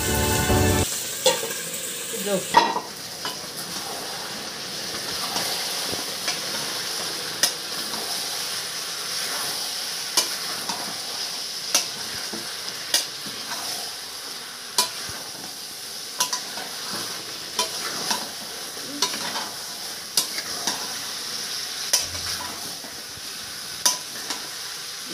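Chicken and potato masala sizzling in a kadai while a spatula stirs it, the spatula knocking and scraping against the pan about every second or so.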